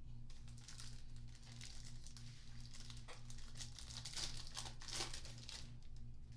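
Foil wrapper of a trading-card pack crinkling and tearing as it is ripped open, with a dense run of crackles that is busiest near the end.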